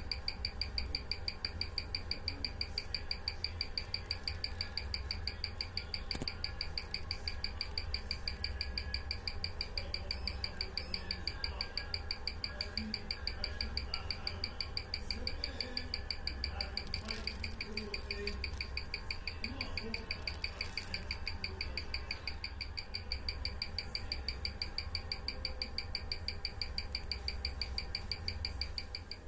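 Orient calibre 46941 automatic watch movement ticking on a timegrapher, an even train of about six ticks a second at 21,600 beats per hour, over a low hum. The beat is even: the movement is freshly regulated and in beat, with zero beat error and gaining only a few seconds a day.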